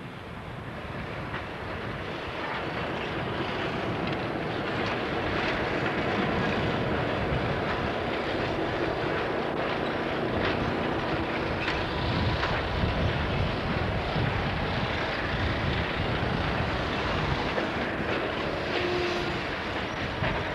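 Passenger train rolling past, its coaches' wheels running on the rails, with an EMD GP7 diesel-electric locomotive's engine running as it comes by at the rear of the train. The sound grows louder over the first few seconds, then holds steady.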